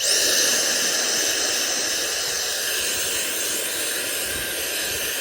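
Dyson vacuum cleaner switched on: its motor spins up with a quick rising high whine, then runs steadily with a loud rush of air.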